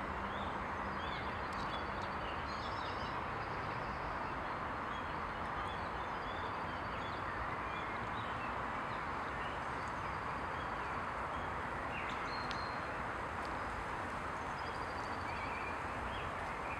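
Steady distant traffic noise, with small songbirds chirping and giving short trills now and then.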